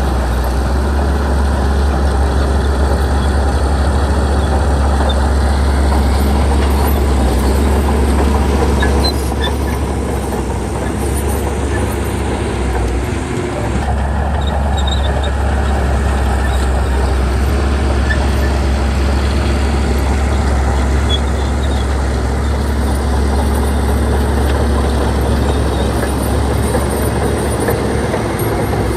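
Heavy diesel engine of earthmoving machinery running steadily with a deep, loud drone, dipping briefly about halfway through.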